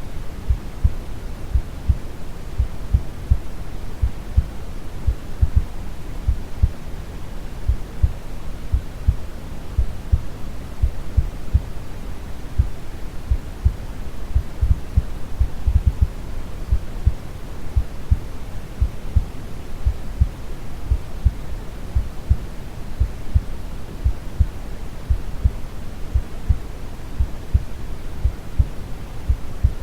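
Steady brown noise with a calm heartbeat under it: regular low thumps repeating evenly.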